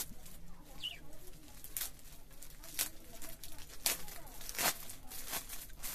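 Plastic courier mailer bag being handled and torn open by hand: several short crinkling rips.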